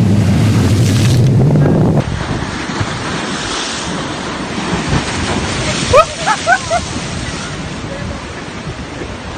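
Sea waves breaking and surging over black rocks, with wind buffeting the microphone. The sound drops and changes abruptly about two seconds in.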